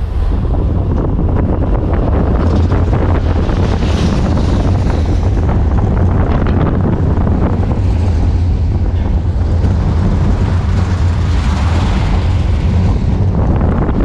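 Wind buffeting the microphone over a steady low rumble of a Vekoma Boomerang roller coaster train's wheels running along the steel track at speed.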